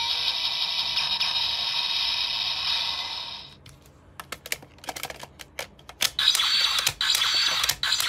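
Bandai DX Onjuuken Suzune toy sword-gun playing its electronic finisher sound effect through its small built-in speaker. The effect cuts off about three and a half seconds in, followed by a quick run of sharp plastic clicks as the toy and its ride book are worked. Another electronic sound effect starts about six seconds in, with more clicks.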